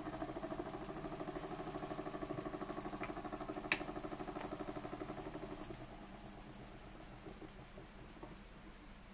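Burnac Vulcan model steam engine running under steam with a fast, even beat. There is a single sharp click about four seconds in. From about six seconds on it runs quieter and its beats slow and thin out towards the end.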